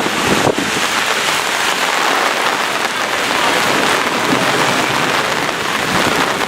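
Heavy thunderstorm rain pouring down in a steady, dense hiss, with a brief low thump about half a second in.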